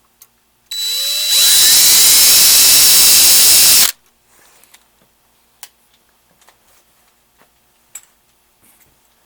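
Electric drill spinning up with a rising whine about a second in, running loud and steady for about three seconds, then stopping abruptly; a few faint clicks follow.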